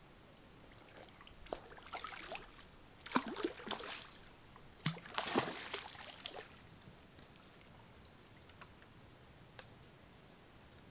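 A hooked carp splashing at the water's surface near the bank as it is played in, in several short bursts of splashing and sloshing that are loudest about three and five seconds in, then die away.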